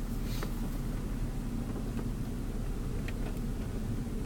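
Road noise inside a moving car's cabin: a steady low rumble of engine and tyres with a faint hum, and a few small faint clicks.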